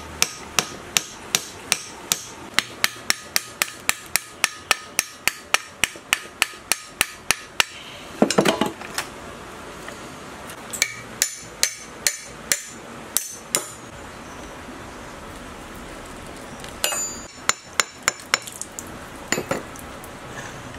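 Hammer blows on the rusted metal of a scrapped diesel engine during teardown: a steady run of about three ringing strikes a second for about eight seconds. A short scraping rattle follows, then scattered single blows.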